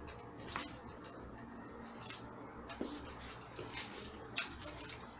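Screwdriver driving a screw into a metal monitor stand: scattered small clicks and ticks as the screw is turned.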